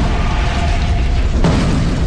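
Film sound mix: a dense, steady low rumble of heavy machinery under music, with a booming hit about one and a half seconds in.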